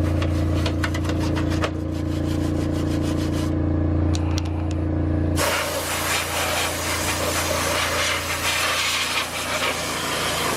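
An air compressor's motor runs with a steady hum and a rapid beat, then cuts off about five seconds in. A blow gun's compressed-air blast hisses steadily after it.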